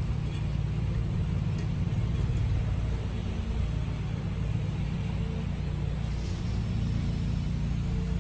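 A steady low motor hum, with light rubbing of sandpaper on the steel wheel rim as rust is smoothed off the bead seat.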